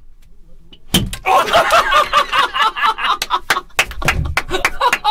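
One smack of a large plastic toy hammer on a man's head about a second in, followed by loud laughter from several men and scattered hand claps.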